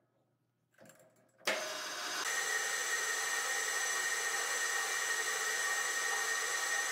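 Metal lathe started about a second and a half in, the spindle spinning up and then running steadily with a constant high whine, while an insert turning tool takes a light facing cut on the end of the steel workpiece.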